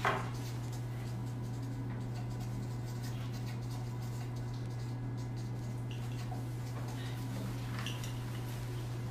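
Steady low hum of room tone, with a short knock right at the start and a few faint ticks.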